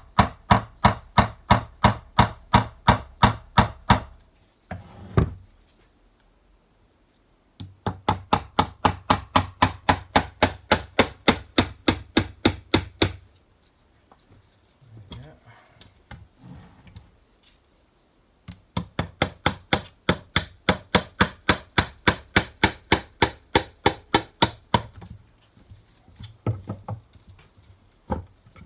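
Rapid metallic hammer blows, about four a second, on a Ford Type 9 gearbox's tail housing, knocking it loose from the main case. Each blow rings. The hammering comes in three runs with short pauses between, and a few lighter taps near the end.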